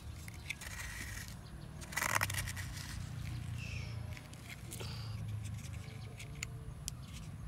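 A detached plastic toy excavator bucket scraping and scooping through dry sandy soil, in a few short scrapes with light clicks.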